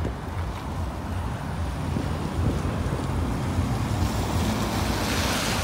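Mazda MX-5 driving past on a wet road: its engine running under the hiss of tyres on wet tarmac, the hiss growing louder near the end.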